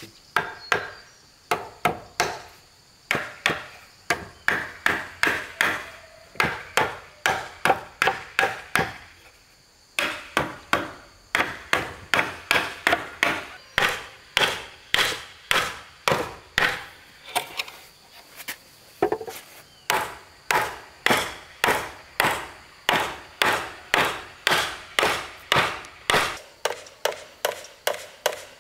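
Repeated chopping strokes on wood, about two a second, keeping a steady rhythm with a short break about ten seconds in.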